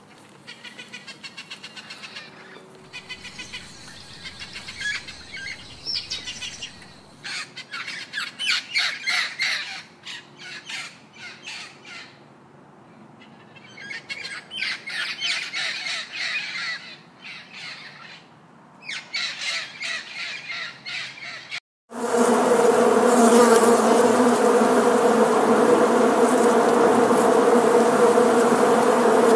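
Parrots squawking and screeching in runs of rapid, harsh calls, broken by short pauses. About 22 s in, this cuts abruptly to a loud, steady buzzing hum of a honeybee colony on the comb.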